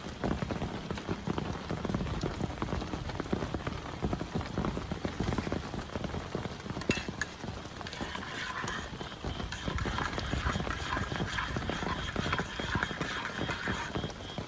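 Heavy rain pattering densely and irregularly on a camp shelter, a constant rapid tapping of drops. A higher, steady hiss joins about eight seconds in.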